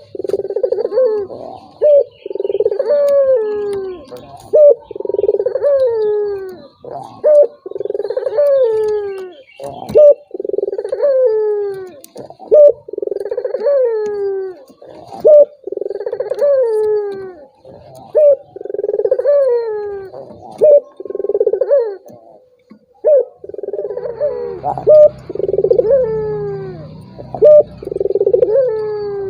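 Puter doves (domesticated turtle doves) cooing over and over, a coo every second or two with pitch that slides downward. It is a lure recording used to set other puter doves cooing. A low hum joins in near the end.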